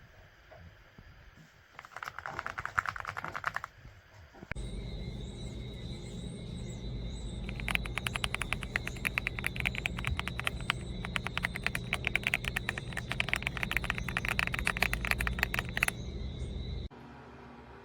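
Typing on an EPOMAKER x Aula F99 mechanical keyboard with Graywood V3 switches: a short burst of keystrokes about two seconds in, then fast continuous typing for about eight seconds. Under the typing runs a steady low hum with a faint high whine, which stops abruptly near the end.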